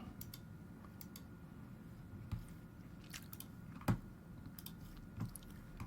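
A few faint, scattered clicks and small ticks over a low background hiss, the clearest about four seconds in.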